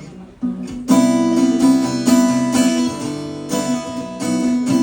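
Acoustic guitar strummed in chords between sung lines, soft at first and much louder from about a second in.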